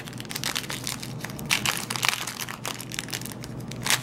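Foil trading-card pack wrapper crinkling and crackling as it is handled and worked open by hand, a steady run of small irregular crackles.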